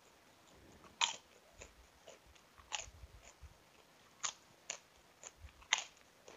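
A person chewing and biting food close to the microphone, with irregular sharp crunches and mouth clicks; the loudest come about a second in and near the end.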